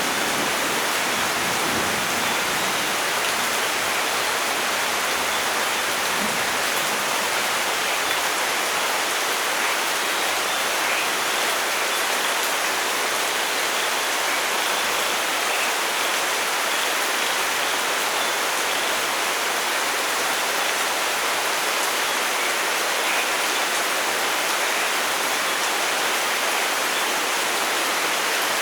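Steady, heavy rain falling in a forest, an even hiss with no let-up, with a low rumble of thunder dying away in the first couple of seconds.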